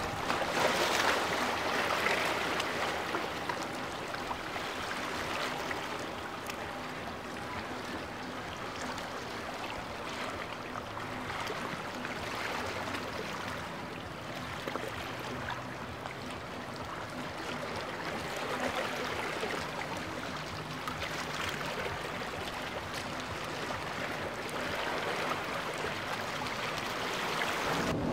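Rushing, splashing water from waves in a boat inlet, a little louder in the first couple of seconds, with a faint steady boat-engine hum underneath.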